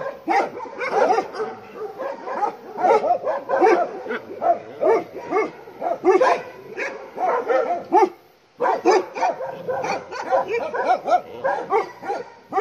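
Several Bhotia dogs barking hard and continuously, overlapping barks several a second with a brief break about eight seconds in: alarm barking at a leopard close to the farm.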